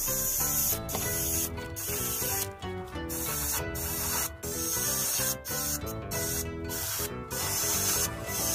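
Background music of held chords over a high, steady hiss of paint being sprayed, which breaks off briefly many times as the spray stops and starts.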